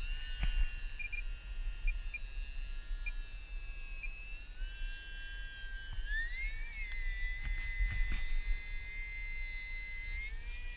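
Stryker RC flying wing's electric motor and propeller in flight, a thin high whine of several tones at once that shifts in pitch, glides up sharply about six seconds in and then holds steady.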